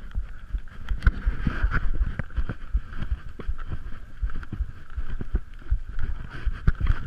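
Irregular low knocks and rumbling, several a second, over a steady hiss: handling noise of a camera carried by someone on the move in the snow.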